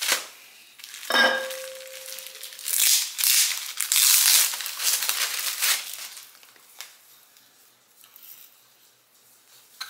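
Plastic packaging crinkling and tearing as a clothing package is opened by hand. It is loudest in the first six seconds, then dies down to quieter rustling.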